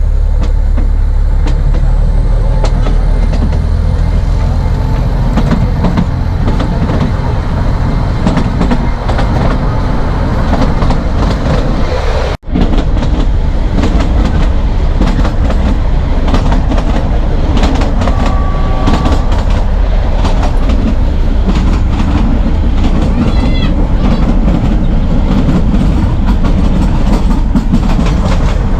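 Narrow-gauge passenger train running along the track, heard from on board: a steady loud rumble with wheels clicking and clattering over the rail joints. It breaks off for an instant about twelve seconds in.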